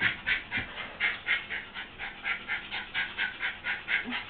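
Dog panting hard and fast, about three breaths a second, out of breath from running.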